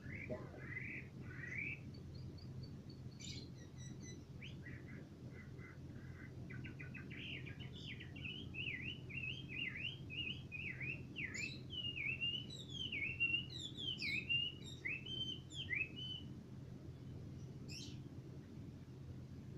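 Caged Chinese hwamei singing: a few rising whistles at first, then a run of quick short notes, building to a long string of loud, repeated down-slurred whistles that are strongest in the middle of the song. A faint steady low hum lies underneath.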